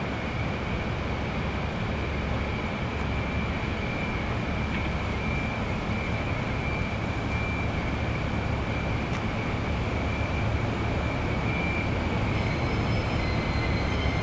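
Distant diesel locomotives, two Nagoya Rinkai Railway ND552s coupled together, running with a steady low engine rumble that grows slightly louder toward the end. A steady high-pitched tone runs over it.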